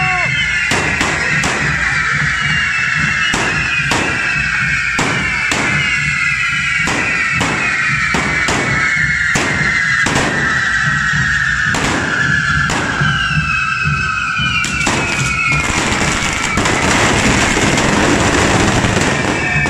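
Many carretilles, firework cartridges on the devils' forks, going off at once: a dense whistling shriek sliding slowly down in pitch, cut through by sharp bangs about once or twice a second. About three-quarters of the way through the whistling gives way to a loud spraying hiss.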